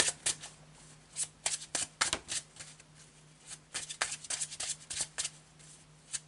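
A deck of tarot cards being shuffled by hand, with quick, irregular card clicks in two spells and a short lull in between.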